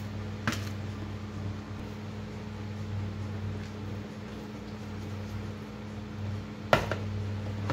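A plastic colander of rinsed potato slices knocking against a plastic basin as it is shaken to drain: one sharp knock about half a second in and a louder one near the end. A steady low mechanical hum runs underneath.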